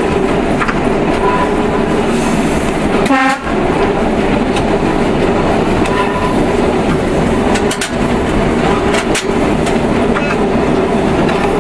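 Diesel passenger railcar running along the track, a steady engine and running hum. A brief pitched tone sounds about three seconds in, and a few sharp wheel clicks over rail joints come near the end.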